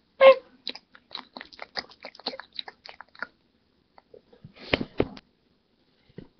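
Light clicking and tapping of plastic toys being handled and moved about, with two sharper knocks about five seconds in.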